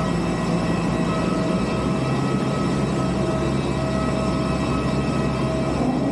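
Steady drone of a parked airliner and apron equipment running, with several high constant whining tones over a low hum.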